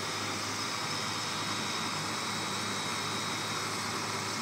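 Small electric blender running steadily, blending strawberries, sugar and milk into a milkshake.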